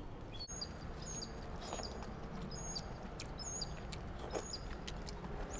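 A bird outside chirping over and over, one short high call about every second, over a faint steady outdoor background. Soft clicks come from someone eating rice by hand, fingers working the food on a plate.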